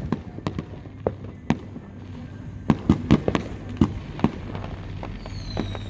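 Fireworks going off: a rapid, irregular string of sharp bangs and pops, about a dozen in all, with a high whistle near the end.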